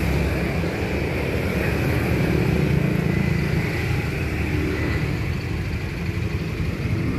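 Steady low rumble of a vehicle engine running nearby, with outdoor traffic noise.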